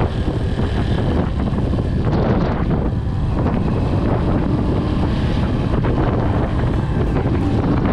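Wind buffeting the rider's microphone at road speed over the steady drone of a Keeway CR152's 150cc single-cylinder engine and tyre noise.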